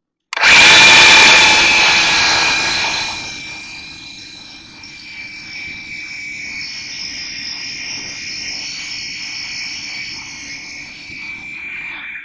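Worx WG322 20V cordless chainsaw, with a brushed motor and 10-inch bar, starting up and cutting through a thick log. It is loudest for about the first three seconds, then quieter and steady as the chain works through the wood, bogging down a little under the load. It cuts off suddenly near the end.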